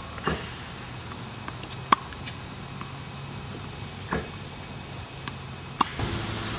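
Tennis balls being fed by a Tennis Tutor ball machine and hit back with a racket: four sharp pops of ball impacts about two seconds apart, over a low steady hum.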